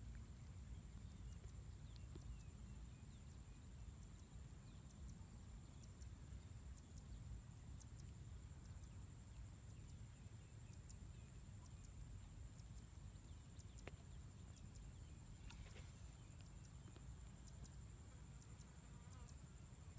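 Near silence: faint outdoor ambience with a low rumble and a continuous high-pitched pulsing trill that pauses briefly twice.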